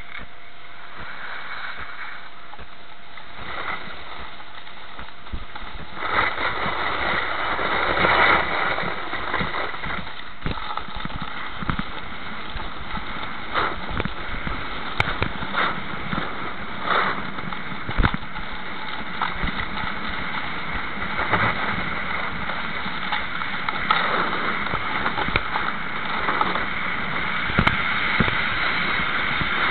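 A snowboard sliding down a packed-snow slope: a steady rush of snow and wind noise, with many short scrapes of the edges biting the snow. It gets louder about six seconds in as the ride speeds up.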